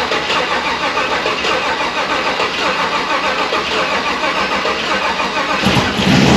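Starter cranking the Silverado's freshly cammed, LT4-supercharged V8 in a fast, even churn for about six seconds. Near the end a deeper, louder surge comes in as the engine fires briefly. This is a first start attempt after the cam and blower install.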